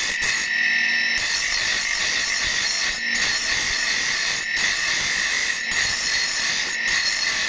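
Bench grinder's abrasive wheel grinding a steel axe-head blank: a steady high-pitched grinding hiss with brief dips about every second and a half.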